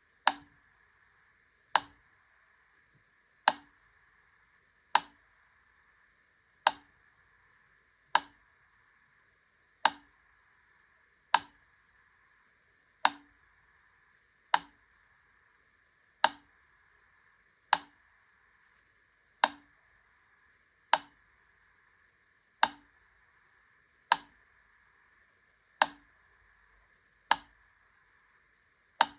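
Wittner Taktell Piccolo mechanical clockwork metronome ticking at a slow tempo: a single sharp tick about every one and a half seconds as the pendulum arm swings side to side.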